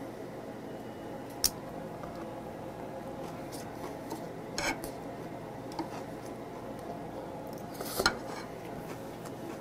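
Metal tongs clinking against a metal bowl a handful of times, the sharpest clink about a second and a half in and another near the end, over a steady low hum.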